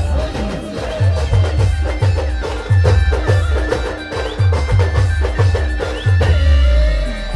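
Timli dance music played by an Adivasi band: a melody with held notes and slides over drums, with a heavy bass beat about twice a second.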